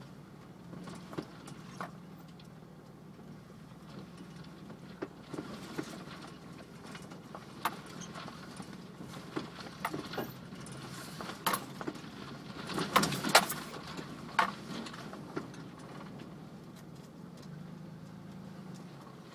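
A 4x4's engine running at a slow trail crawl, heard from inside the cab as a steady low drone. Scattered clicks and knocks come through it as the vehicle rolls over rock, with a louder cluster of knocks about two thirds of the way in.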